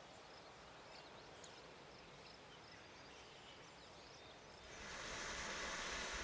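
Quiet outdoor ambience with faint bird chirps, then about four and a half seconds in a steady sizzling of food frying over the campfire starts up and holds.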